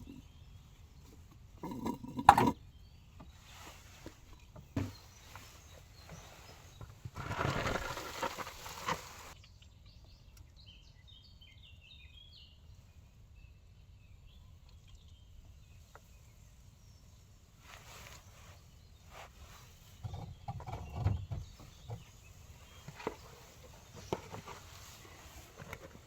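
Sporadic knocks and clinks of hand tools and car parts being handled during repair work, the sharpest about two seconds in. There is a longer scraping or rustling noise around seven to nine seconds and another burst of knocks and handling noise near the end.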